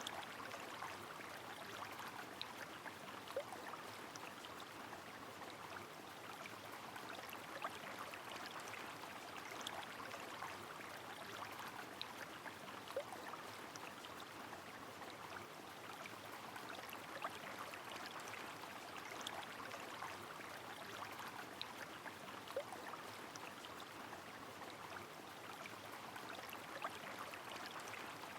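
River flowing steadily in the rain, a constant rushing with many scattered small drip ticks and an occasional louder drop.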